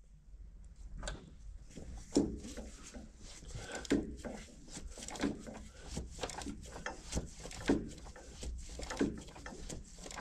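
Irregular metal clunks and creaks, roughly one a second, from hand tools worked in strokes on a Caterpillar 3406B diesel engine block.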